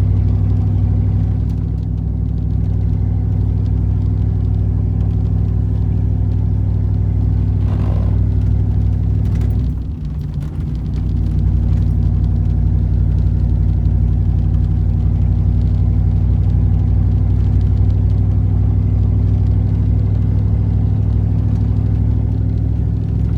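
Ford 460 big-block V8 pulling the truck along at a steady speed in four-wheel drive, a steady low engine drone. About ten seconds in the engine note dips briefly, then settles back to the same steady drone.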